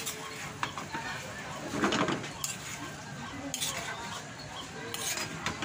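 Metal spatula scraping and clicking against a pan as chopped bottle gourd is stirred and sautéed, with a bird calling.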